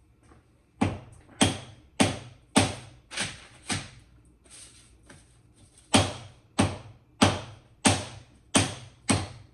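Hammer blows, about one every 0.6 seconds, in two runs of six with a pause of about two seconds between them.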